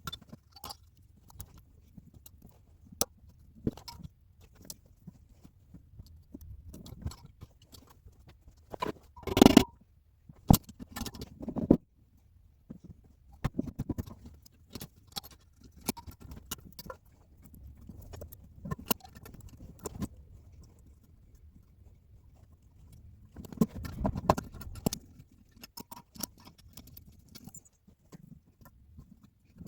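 Scattered metal clicks, taps and clinks of valve keepers being fitted with a valve spring compressor on a VAZ classic cylinder head, springs and retainers pressed down and released. A louder clatter comes about nine and a half seconds in, and another cluster of clicks comes near twenty-four seconds.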